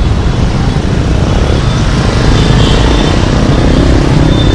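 Busy city street traffic: a steady wash of motorbike and car engines and tyre noise, with one engine note rising about three seconds in.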